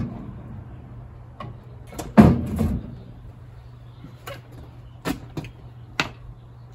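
Homemade wooden 2x4 outboard dolly knocking against the truck bed and thudding as it slides down to the driveway, with one heavy thump about two seconds in. Lighter knocks and clicks follow as the outboard motor is handled and lifted off.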